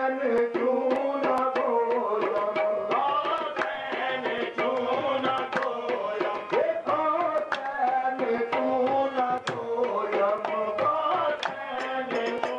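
Devotional music with tabla drums beating a quick, steady rhythm of about three strokes a second under a held melody, without words in this stretch.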